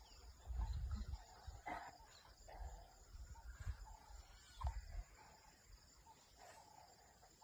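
Faint animal vocalizations, a few short calls, over bouts of low rumbling in the first five seconds.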